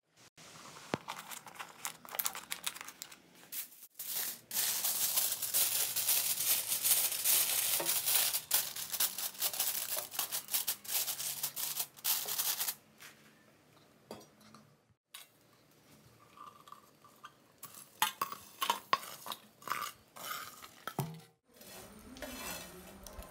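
Aluminium foil crinkling and rustling for several seconds as it is pressed over the rim of a clay pot to seal it for dum cooking. Near the end come a few light clinks and knocks as a plate with charcoal goes on top.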